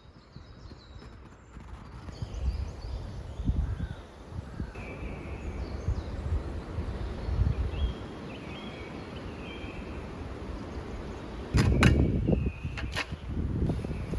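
Woodland ambience: faint scattered bird chirps over a low rumble of wind, with a few sharp knocks and a louder rustling burst near the end.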